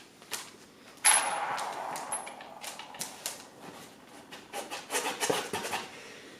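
Knocks, clicks and rattling of cat tree parts and screws being handled during assembly, with one loud clatter about a second in and a quicker run of clicks and knocks near the end.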